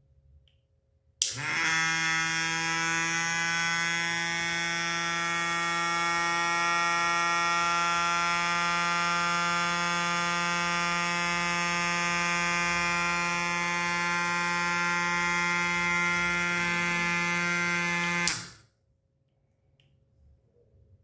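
Small electric motor of a homemade mini fan switched on about a second in, running with a steady, even-pitched hum, then switched off near the end.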